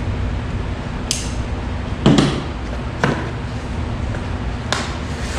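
Packing tape on a cardboard shipping box being cut and torn open: a few short rasping scrapes, with a louder thump of the box about two seconds in, over a steady low hum.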